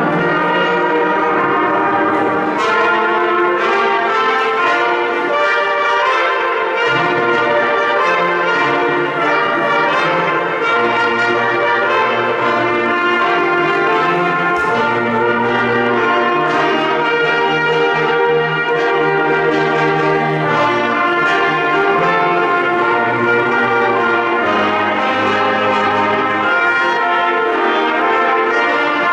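Live brass ensemble playing: trumpets and low brass sounding together in held chords over a moving bass line.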